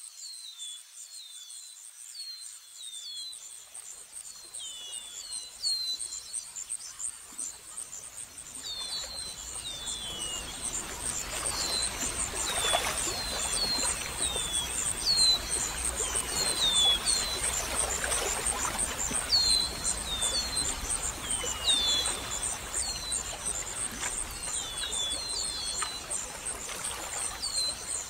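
Outdoor nature ambience: many short, falling bird chirps over a steady, pulsing high insect trill. A rushing noise builds up from about a third of the way in and stays under the birds.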